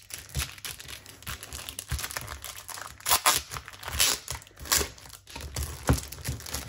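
Crinkly plastic packaging being torn and pulled open by hand: irregular crackling rustles, with the loudest bursts about three seconds in and again near the end.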